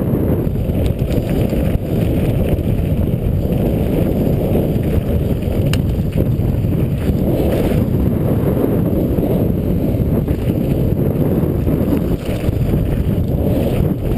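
Wind buffeting an action camera's microphone during a fast mountain-bike descent, a steady low rushing, with the tyres rumbling over loose gravel and an occasional faint click.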